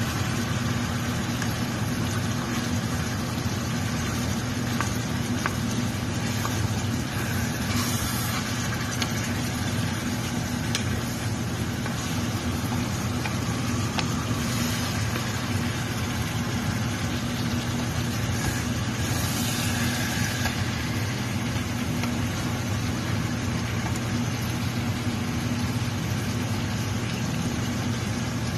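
A steady low machine hum with an even hiss over it and a few faint clicks.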